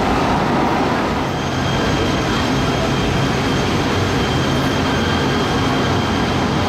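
Light rail train running: a steady, even rumble of wheels and running gear. A faint steady high whine comes in about a second in.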